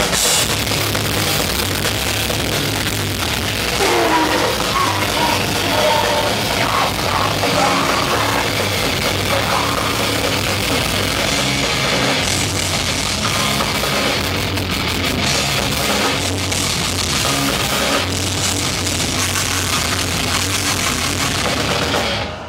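A crust-punk/grindcore band playing loud and live, with heavily distorted guitars, bass and fast pounding drums in a dense wall of sound. The full band crashes in at the start and stops abruptly at the end.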